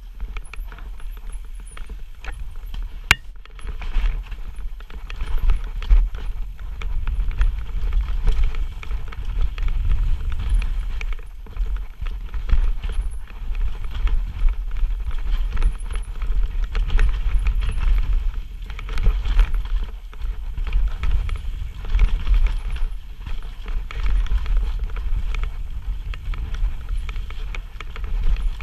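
Mountain bike descending a rough dirt trail at speed: constant irregular rattling and clattering of the bike over roots and bumps, tyres running on dirt, with a steady wind rumble on the microphone. There is one sharp click about three seconds in.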